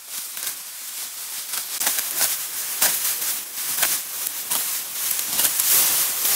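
Dense rustling and crackling with many small snaps, kept up throughout.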